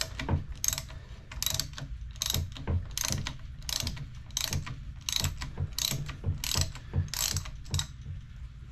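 A 3/8-inch drive ratchet with a 32 mm socket clicking through about a dozen short strokes, a little under one a second, stopping near the end. It is unscrewing the depressurised air-spring top cap of a Fox 36 fork.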